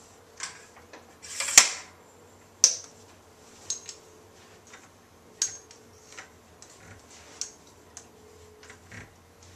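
Irregular clicks and knocks of aluminium tripod legs being handled, the loudest knock about one and a half seconds in and a sharp click about a second later.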